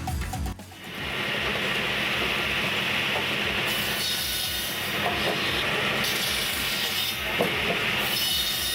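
Firewood processor at work: an engine drone under the steady hiss of its saw cutting through wood, with a few knocks of wood. A tail of music ends just before the machine sound comes in, about a second in.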